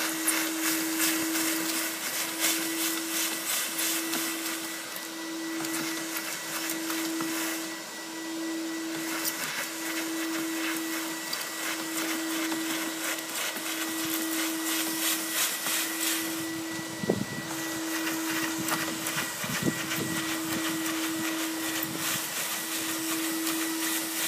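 Vacuum cleaner running through a GutterVac pole and hose, sucking debris out of a roof gutter: a steady motor hum under rushing air, with irregular crackles of debris drawn up the tube. One sharp knock about seventeen seconds in.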